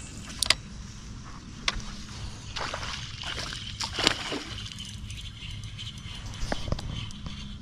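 Water sloshing and lapping against a fishing boat, over a steady low hum, with a few sharp clicks scattered through.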